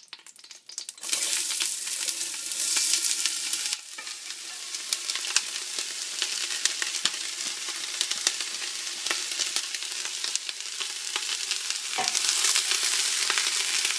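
Chopped onion and celery dropping into hot olive oil in a stainless stockpot and sizzling, starting about a second in, with a steady crackling hiss as the sauté begins. A wooden spoon stirs the vegetables near the end.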